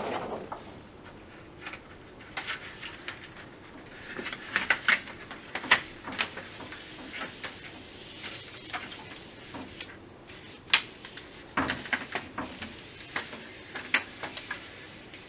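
Thin plastic backlight reflector sheet of a Philips 49PUS6412 LCD TV being fitted over the LED strips and pressed into place by hand: rustling and flexing of the sheet, with scattered light clicks and taps as it meets the LED lenses and the metal frame.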